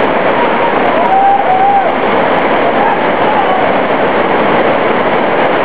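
Loud, steady roar of whitewater rapids, the river pouring over and around rocks.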